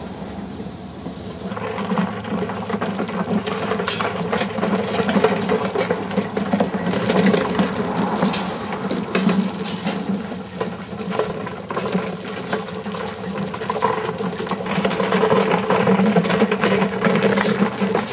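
A machine running steadily with a low hum, overlaid by irregular rattling and clicking.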